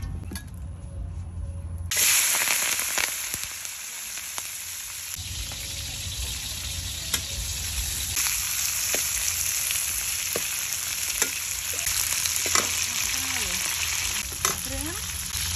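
Garlic and greens frying in hot oil in a steel wok. A loud sizzle starts suddenly about two seconds in as the food goes into the oil, then carries on steadily, with short clicks and scrapes of a metal spatula stirring.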